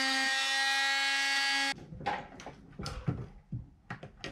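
A power tool running at a steady pitch while enlarging a hole in a car's sheet-metal firewall, cutting off abruptly about a second and a half in, followed by scattered light knocks and taps.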